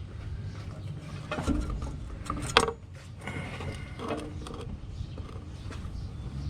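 Metal clunks and scrapes as an engine hanging from an engine hoist is shifted into position against the transmission, with one sharp clank about two and a half seconds in.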